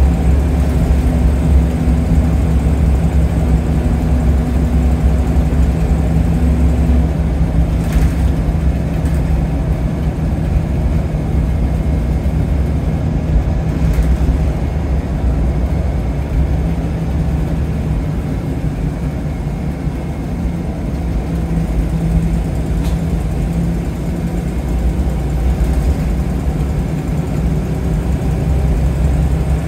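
Scania L94UB Wright Solar bus's diesel engine running steadily, heard from on board as a continuous low drone, with a few brief clicks or rattles.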